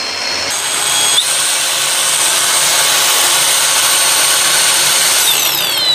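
Cordless 4-inch angle grinder spinning its wheel free with a high whine. The pitch steps up about a second in as the speed is raised, holds steady, then falls away near the end as the grinder is switched off and winds down.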